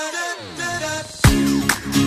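Background music: a short break with falling sweeps and a few held notes, then the steady drum beat comes back about a second in.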